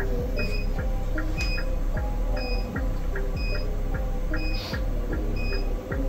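Microwave ablation generator beeping about once a second while it delivers power, with a fainter ticking about four times a second. Background music plays under it.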